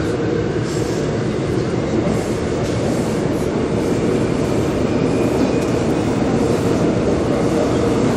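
Subway train running, heard from inside the carriage: a steady low rumble of the moving car.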